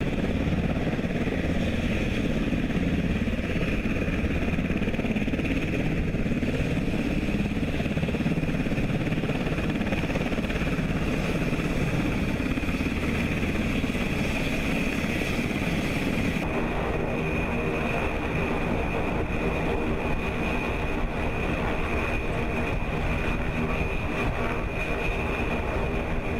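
A steady mechanical drone like an engine running, with a high whine over it; its character changes abruptly about sixteen seconds in, turning into a more even hum with steady tones.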